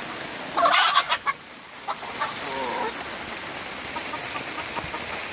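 Backyard chickens clucking, with a loud squawk about a second in and a shorter call a little later, over the steady hiss of rain.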